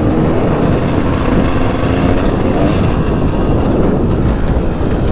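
Dirt bike engine running under throttle while being ridden round a motocross track, with heavy wind buffeting on the unshielded camera microphone; the engine pitch rises briefly about two seconds in.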